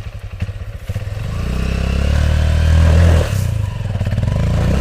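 Motorcycle engine running close by, revving up to a peak about three seconds in, easing off, then revving again near the end as the bike is moved at low speed.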